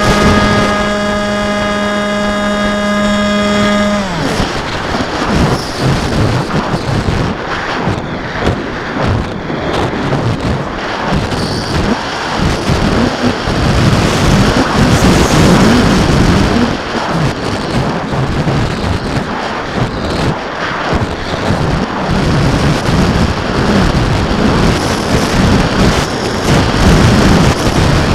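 Onboard audio of a radio-controlled model aircraft in flight: a steady motor hum that stops suddenly about four seconds in, followed by loud wind buffeting the microphone, rising and falling as the aircraft dives and banks.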